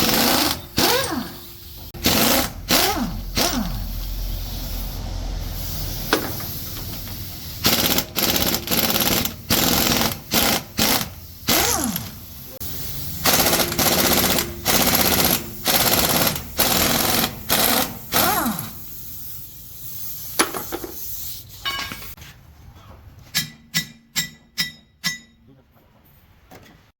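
Pneumatic impact wrench hammering in repeated short bursts, its motor whining up and down between them, with a longer run around five seconds in and a string of quick, lighter bursts near the end.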